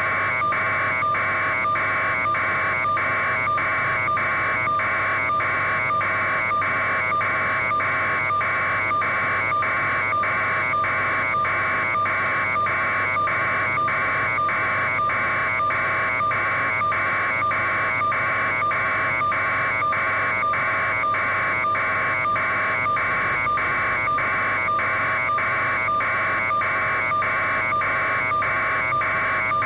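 A steady mechanical-electronic buzz that pulses evenly about twice a second, over a constant tone and a low hum.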